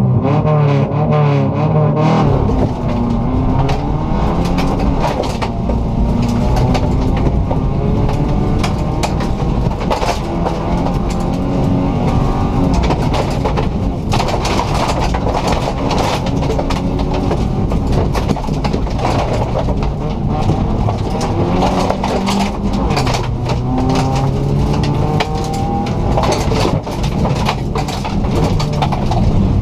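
Rallycross car's engine heard from inside the cabin under hard driving, its pitch repeatedly climbing and dropping as it revs through gears and corners. The car pulls away about two seconds in, and tyres hiss on loose gravel and mud with many small stones ticking against the body.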